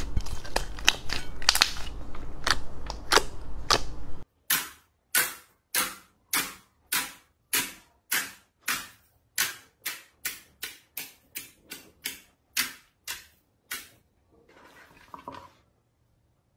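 Crunchy slime being worked by hand: dense crackling for about four seconds, then a long run of sharp, separate pops, a little over two a second, which stops near the end.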